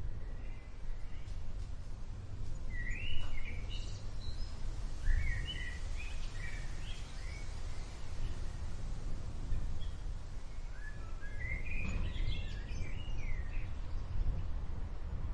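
Outdoor storm ambience: small birds chirping in short clusters of quick calls, three times, over a continuous deep low rumble of approaching thunder and wind.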